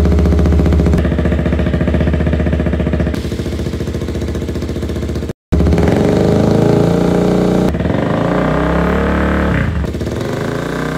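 A KTM Duke's single-cylinder engine running through aftermarket slip-on exhausts, played back to back as a comparison. It idles with the short exhaust, then is held steady at about 3000 rpm with the short exhaust, then at 3000 rpm with the long exhaust and its dB killer fitted. Near the middle the sound cuts out briefly between clips.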